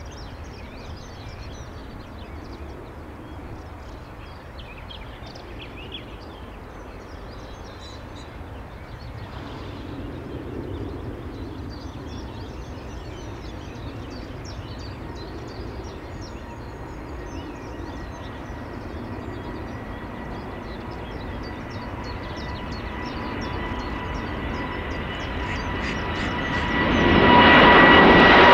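Boeing 787-8 jet engines at takeoff power: a distant steady rumble that slowly grows louder during the takeoff roll. Near the end it swells sharply, with a steady whine, as the climbing airliner comes close.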